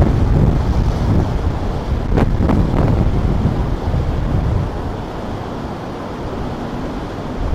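Wind buffeting the microphone in a loud, low rumble, with a few sharper puffs about two seconds in, easing for a couple of seconds near the end. The wash of ocean surf runs beneath.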